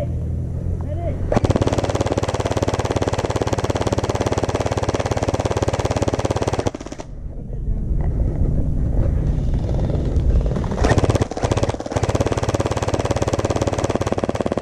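Gel blasters firing on full auto, a rapid continuous rattle that breaks off for about a second roughly seven seconds in, then resumes.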